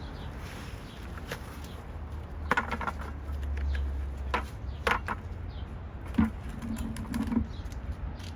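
Digging by hand into the soil of a potato grow bucket: scattered scrapes and knocks of soil and container, over a low steady rumble.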